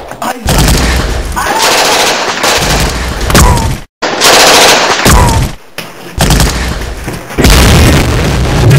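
Bursts of automatic gunfire in a sustained firefight, breaking off briefly about four seconds in and again near six seconds.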